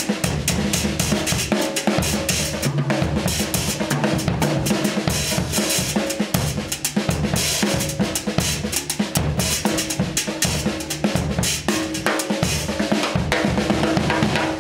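Old SONOR acoustic drum kit played with sticks in a fast, dense solo: rapid snare and tom strokes over the bass drum, with cymbals, without a pause.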